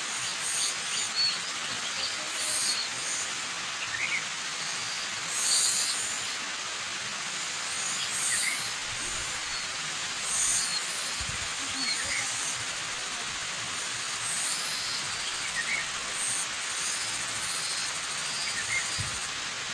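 Waterfall rushing steadily, with small birds chirping in short, scattered calls over it.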